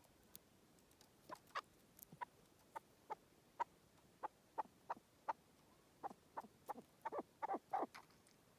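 Partridge calling a series of short clucking notes that come faster and louder toward the end, then stop.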